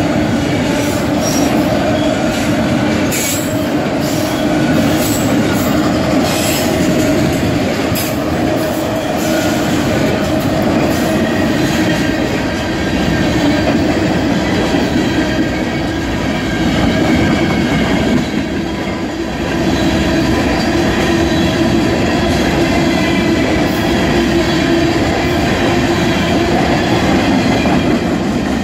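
Freight cars, autoracks then open-top hoppers, rolling steadily past a level crossing. The wheels make a continuous loud rumble on the rails, with steady squealing tones. A few sharp clicks come in the first several seconds.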